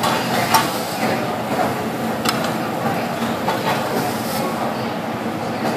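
Metal spatula and scraper scraping across a hot teppanyaki griddle, with a few sharp metallic clinks over a steady hiss.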